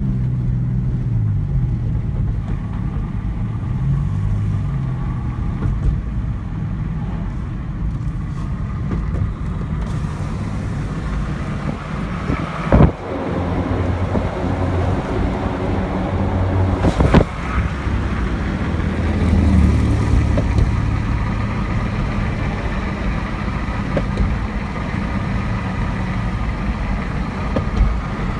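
Car engine and road noise heard from inside the cabin while driving, a low hum that shifts in pitch. Two brief sharp knocks, about halfway through and a few seconds later.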